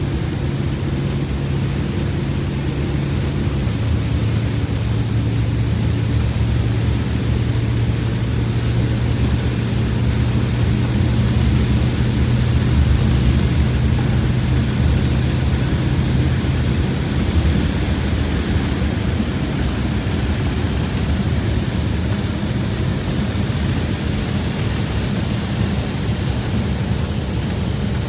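Detroit Diesel 8V92TA two-stroke turbocharged V8 of a Wanderlodge bus running under way with four new pistons and liners, heard from inside the cab along with road and wind rumble. Its steady drone drops in pitch about three and a half seconds in, and the engine tone fades into the road noise a little past halfway.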